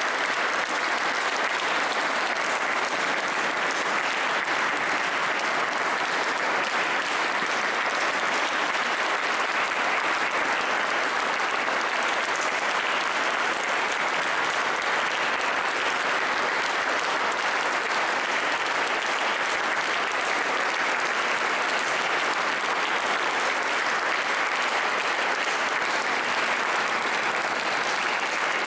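Audience applauding: dense, steady clapping from a large seated crowd.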